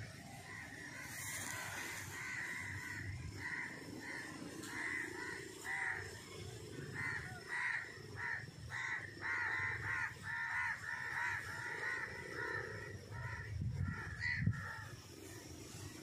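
Purple swamphen calling: a long run of short, harsh squawks, two or three a second, starting about a second in and tailing off near the end. A brief knock comes near the end.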